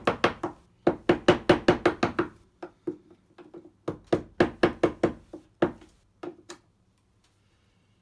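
Rubber mallet striking a wood chisel to cut a deeper recess in a wooden door frame, to give the door latch more clearance. Quick runs of sharp knocks, several a second, with a few lighter taps between, stopping about two-thirds of the way in.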